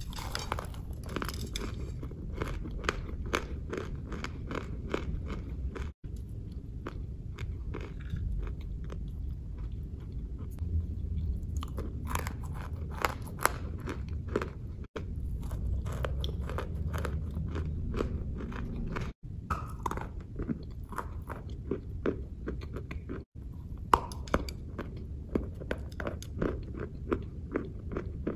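Lumps of chalk being bitten and chewed close to the microphone: a dense run of sharp crunches over a steady chewing sound, broken by a few split-second gaps.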